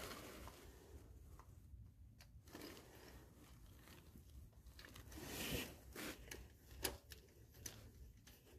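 Faint scattered clicks and short scrapes of a socket and extension turned by hand, starting a bolt into the oil filter adapter housing.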